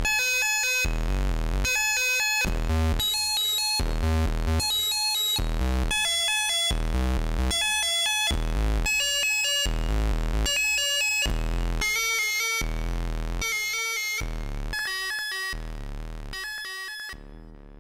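Elektron Analog Four/Keys analog synthesizer playing an EDM preset: a steady sequenced pattern alternating deep bass notes with bright, overtone-rich chord stabs, about five stabs every four seconds, fading out near the end.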